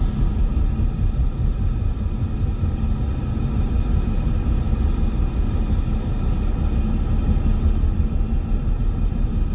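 Steady low rumble of a Ford Mustang driving at road speed, heard inside the cabin: engine and tyre noise.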